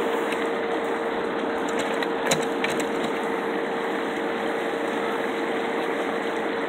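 A steady mechanical hum, like a motor or pump running, with a constant tone under an even noise and a brief sharp click a little over two seconds in.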